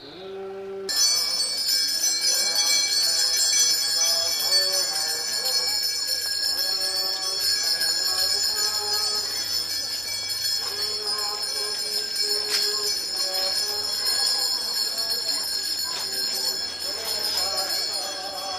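Small altar handbells ringing continuously, a dense shimmering jingle that sets in sharply about a second in and goes on without pause, with faint voices underneath.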